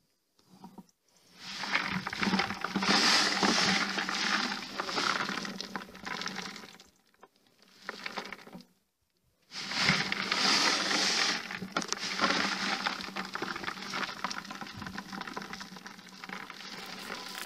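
Clay-soil seed balls tumbling inside the rotating plastic container of a manual seed ball mixer: a dense patter of small knocks and crumbling. It stops for about two seconds around seven seconds in, then starts again.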